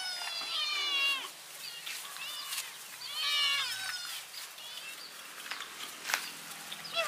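Kittens meowing for food in a series of high, rising-and-falling cries, in four or five bursts, with a few light clicks about six seconds in.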